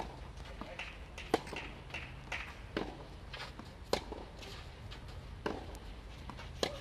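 Tennis ball struck back and forth with rackets in a rally on a clay court: several sharp pocks, the loudest about four seconds in, with shoes scuffing on the clay between shots.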